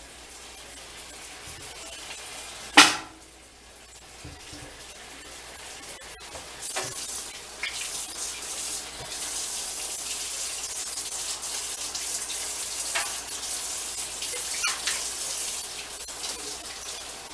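Water running from a kitchen tap into a sink, heavier from about a third of the way in. There is a single sharp knock about three seconds in.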